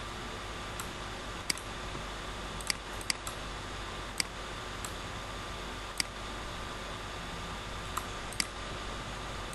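Computer mouse clicking: about ten sharp single clicks at uneven intervals, over a steady microphone hiss.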